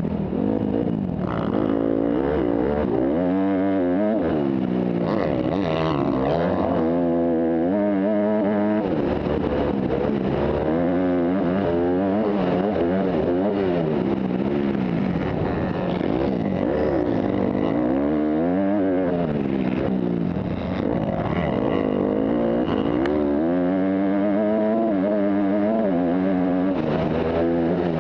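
Dirt bike engine revving up and falling back again and again as it is ridden hard around a motocross track.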